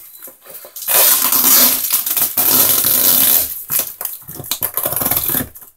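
Packaging handled as a parcel is opened: plastic wrapping and a cardboard box crinkle and rustle loudly for about two and a half seconds, then give softer crackling and scraping.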